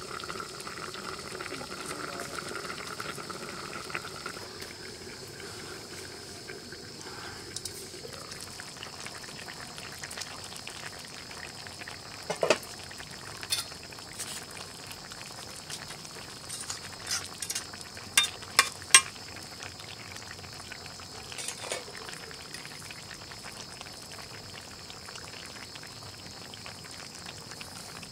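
Fish and bean curry simmering in an aluminium karai over a wood fire: steady bubbling with a hiss. A handful of sharp clicks come in the middle.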